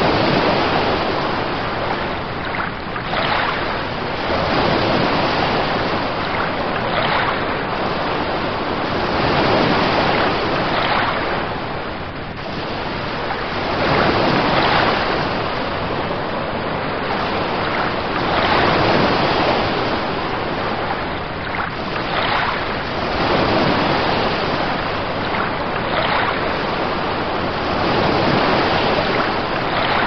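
Ocean surf: a continuous rush of waves that swells and falls back every three to four seconds.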